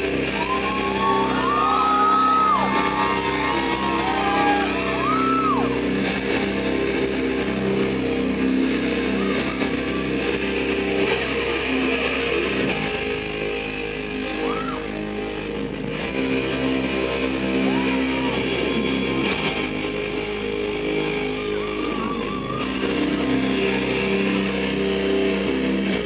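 Live rock band playing, with sustained guitar chords and a few high wailing glides in the first seconds, in a large room.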